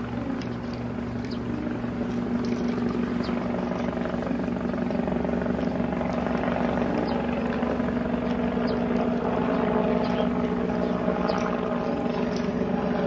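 Steady drone of a propeller aircraft engine, dubbed in as a sound effect for a toy plane being flown by hand; it grows a little louder over the first few seconds.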